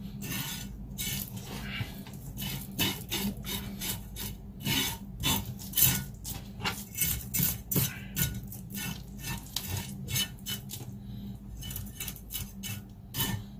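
Chef's knife scraping the scales off a whole yellow croaker on a plastic cutting board: quick, repeated scraping strokes, a few a second, with short gaps.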